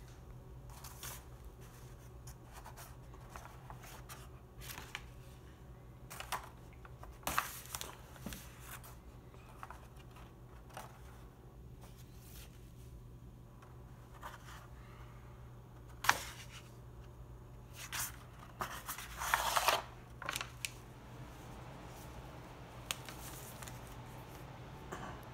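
Stiff, crinkled parchment-style pages of a handmade Necronomicon replica being turned and handled: scattered crackling rustles and clicks, louder twice, with one sharp snap near the middle. A low steady hum runs underneath.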